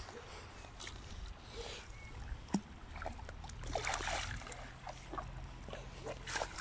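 A carp thrashing at the surface as it is scooped into a landing net, with a short burst of splashing about four seconds in.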